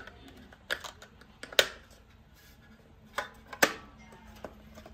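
Sharp plastic clicks and snaps from a Eufy X8 Hybrid robot vacuum's dustbin as its filter is pressed into place and the lid is shut. There are about five clicks, the loudest about one and a half seconds in and about three and a half seconds in.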